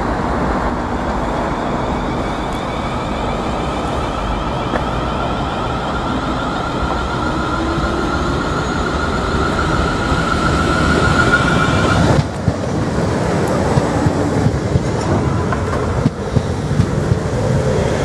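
South West Trains Class 450 Desiro electric multiple unit running in along the platform: a steady rumble of wheels on rail with a thin high whine over it. In the second half come sharp clicks as the wheels pass over rail joints.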